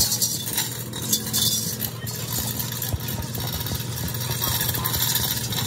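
An engine running steadily at idle, a low, even hum, over outdoor street noise.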